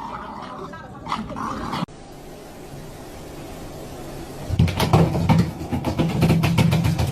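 A dog whimpering and yipping, with a run of knocks and rustling handling noise over a low rumble starting a little past halfway.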